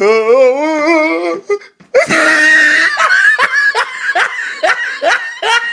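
A high-pitched, wavering laughing squeal, then about two seconds in a sudden loud eruption of many teenagers screaming and laughing, with short rising yelps and whoops after it.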